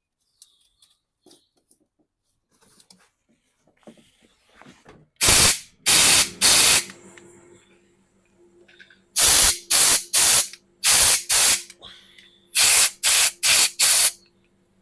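Compressed-air blow gun fired in short hissing blasts, about a dozen of half a second or so in three groups from about five seconds in, blowing dust out from around the fuel injector holes in the cylinder head.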